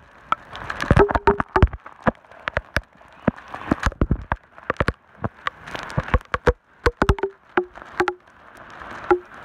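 Heavy rain with a steady hiss, broken by many sharp, irregular taps of raindrops striking close to the microphone. Some of the taps carry a short low ring.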